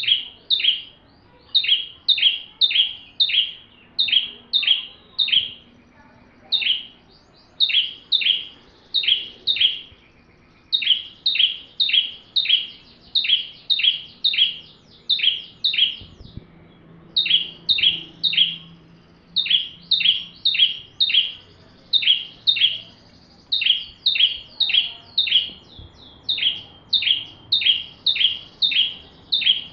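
Ciblek, a small prinia, singing vigorously: a rapid series of sharp, high chirps, about three a second, in long runs broken by brief pauses.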